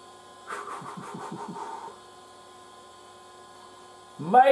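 Macintosh Classic II's internal hard drive chattering with rapid seek clicks for about a second and a half as it reads a program from disk, over the steady hum and whine of the computer.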